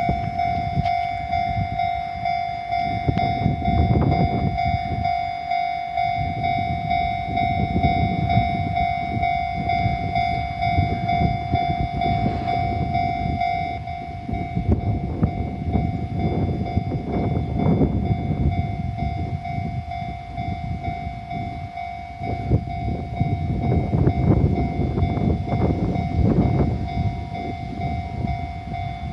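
Level-crossing warning bells ringing steadily while a container freight train hauled by an EF210 electric locomotive rolls through the crossing. The rumble of its wheels on the rails swells and eases again and again as the wagons pass.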